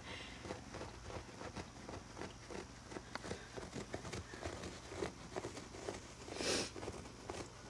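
Faint, irregular scratching and ticking of fingertips on a looped carpet, with one short breathy hiss about six and a half seconds in.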